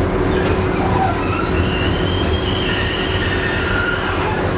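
Konstal 102N articulated tram heard from inside the rear car while running: steady rumble of wheels and running gear with a steady hum. From about a second and a half in, a high wheel squeal rises and then fades as the tram takes a curve.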